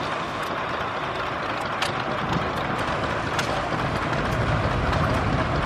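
Steady outdoor background rumble and hiss of a vintage tractor show, with distant engine noise and a few faint clicks.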